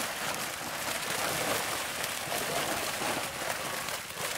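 Many fish thrashing at the surface inside a seine net drawn tight in shallow pond water: dense, continuous splashing with no let-up.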